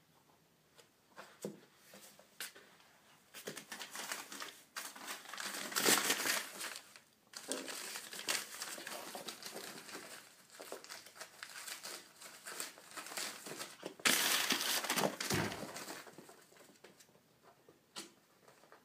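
Newspaper crinkling and rustling in irregular bursts as a Yorkshire terrier grabs and shakes it on the carpet. The loudest bursts come about six seconds in and again around fourteen seconds.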